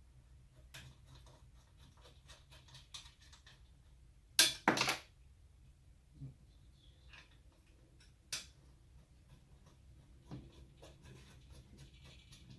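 Steel server-rack frame parts and screws being handled during assembly: scattered light clicks and taps, two loud metal knocks in quick succession about four and a half seconds in, and another sharp knock a few seconds later.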